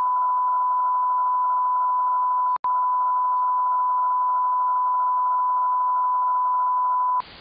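A steady 1 kHz line-up test tone played with colour bars, broken by a brief dropout about two and a half seconds in. It cuts off near the end, where a faint hiss takes over.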